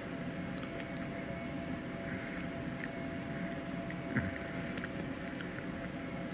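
Scattered small clicks and wet smacks of a person gnawing meat off a baked chicken bone, over a steady low hum. One sharper click comes about four seconds in.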